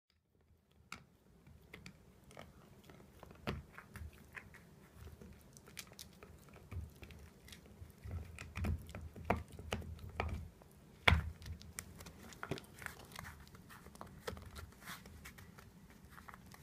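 Smooth miniature dachshund gnawing on a dental bone chew toy: irregular clicks and knocks of teeth on the toy, starting about a second in, with the loudest bite about eleven seconds in.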